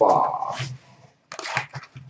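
Cardboard and plastic wrap of a hockey card box crinkling and rustling as it is handled and opened, in quick irregular bursts starting about a second in after a brief pause.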